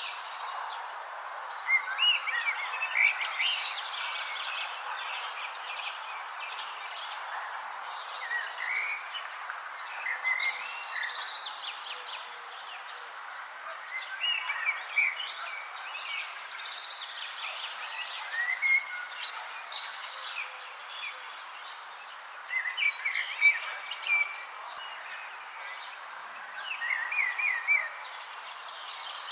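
Nature ambience: an insect trill, high and pulsing without a break, with short bird chirps every few seconds over a soft steady hiss.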